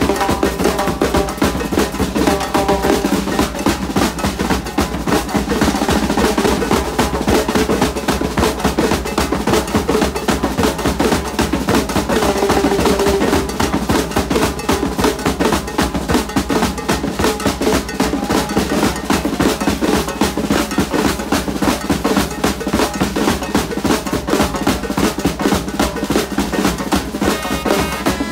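A carnival band's drum section playing together: several snare and marching drums struck with sticks in a fast, unbroken rhythm.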